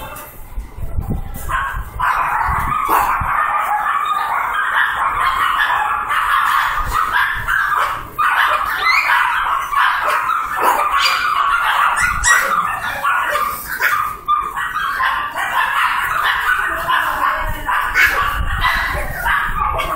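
A litter of young poodle puppies crying all at once, a continuous overlapping chorus of high-pitched yips and whines that swells about two seconds in.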